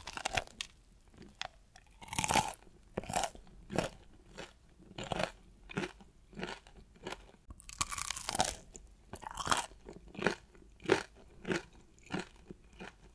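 Someone biting into and chewing a canelé, its crisp caramelized crust crunching in a steady rhythm of chews. Louder crunchy bites come about two seconds in and again about eight seconds in.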